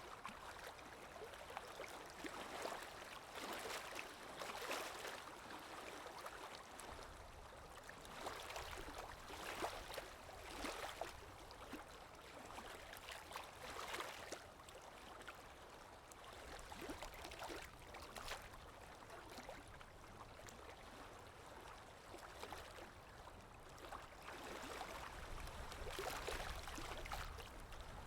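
Small lake waves washing and splashing against the shore in irregular surges every second or two, with a low rumble building near the end.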